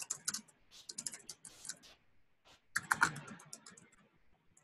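Typing on a computer keyboard: quick runs of keystrokes, a short pause about two seconds in, then a louder flurry of keys and a few scattered taps.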